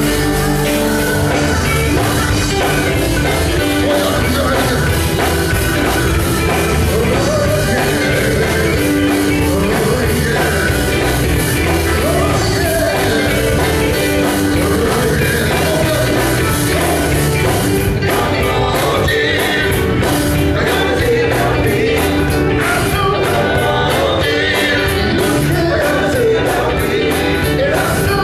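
Male gospel vocal group singing live with band accompaniment of drums and electric guitar, at a steady beat.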